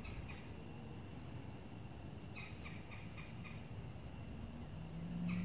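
Woodland background with a bird calling in quick runs of short, high chirps, one run at the start and another about two and a half seconds in, over a low rumble; a low steady hum swells near the end.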